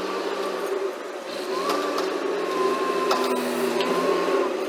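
Forklift engine running as the forklift drives up, with a higher whine that wavers in pitch from about a second and a half in, and a couple of sharp clanks.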